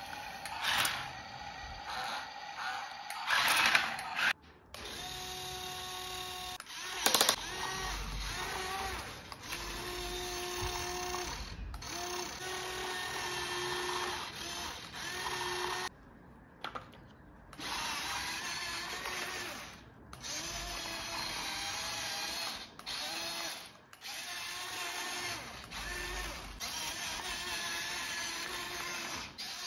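Small electric motors and plastic gearboxes of toy RC construction vehicles whining in stop-start runs of a second or two each as the machines drive and work the sand. There are two brief louder bursts about 3 and 7 seconds in.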